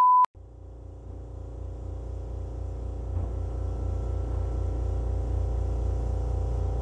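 A short 1 kHz test-tone beep, then a steady machine hum from floor-installation work in the house, with a regular pulse, growing louder over the first few seconds.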